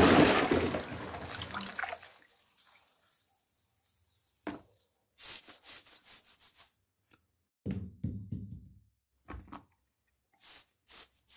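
Toilet flush rushing and fading out over the first two seconds. After a quiet spell, short scattered wet squishes and light knocks follow as a hand grabs and squeezes soft toy balls in the wet bowl.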